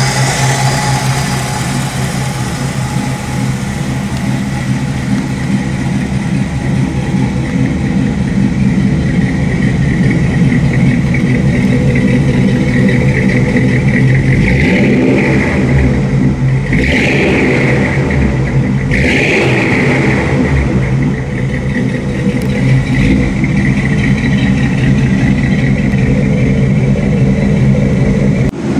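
1951 Ford's lightly modified flathead V8, with a Mercury crankshaft and mild cam, running through its dual exhaust with a gurgle, blipped a few times about halfway through.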